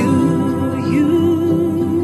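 Slow song with a singing voice holding a long, wavering note over sustained accompaniment.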